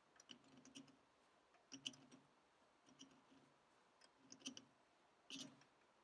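Faint clicks and scrapes of a steel pick riding in the thread of a quick-coupler body as the lathe chuck is turned slowly by hand, lifting out old Loctite thread sealant. They come in small clusters, about one a second.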